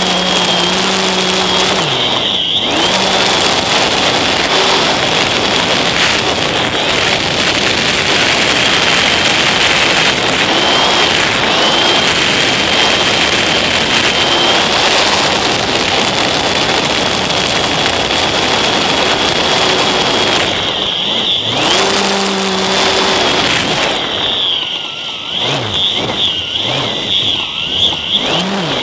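Battery-powered electric motor and propeller of a radio-controlled model plane, heard from a camera on board, with a steady high whine over a loud rush of wind across the microphone. Late on the rush eases and the whine wavers up and down as the throttle changes.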